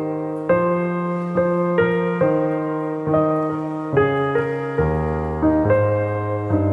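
Background music: a slow piano melody of held notes, a new note or chord about every half second to a second.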